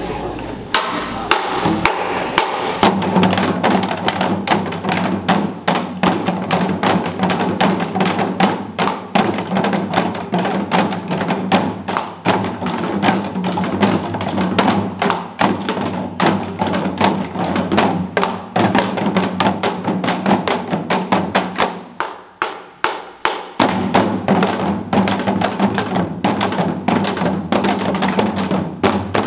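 Janggu (Korean hourglass drums) struck with thin sticks by several dancers in a fast, dense rhythm, over a music track with steady held low tones. The held tones drop out briefly a little past the twenty-second mark while the drumming goes on.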